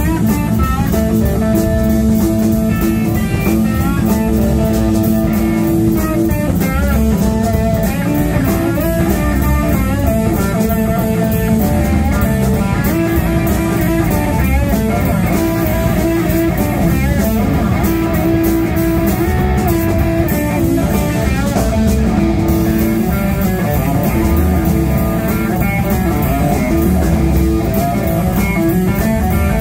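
Live blues-rock band playing an instrumental passage: two electric guitars over a drum kit, with a lead guitar line that bends and wavers in pitch.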